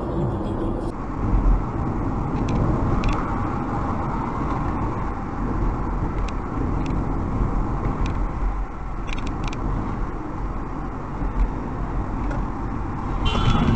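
Steady rumble of a car's tyres and engine heard from inside the cabin while driving, with a few faint clicks. A loud, noisy surge begins just before the end.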